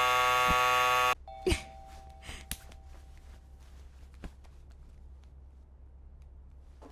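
Electric doorbell buzzer sounding one loud, steady tone for about a second, then cutting off abruptly. A faint steady tone lingers for a couple of seconds, followed by quiet room noise with a few small clicks.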